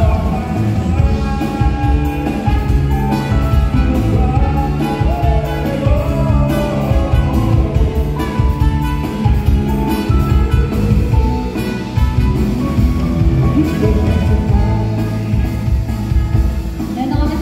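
A live band playing a song, with drum kit, bass and guitar.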